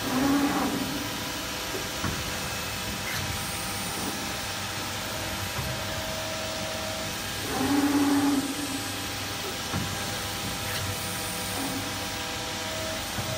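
Electro-hydraulic CNC press brake running: its electric motor and hydraulic pump give a steady hum and hiss. A louder surge about a second long comes at the start and again about halfway through.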